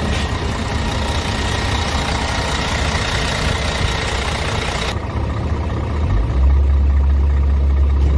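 Scania R truck's 500 hp Euro 6 diesel engine idling with a steady low hum. About five seconds in the higher hiss cuts off suddenly, and a second later the low hum gets louder.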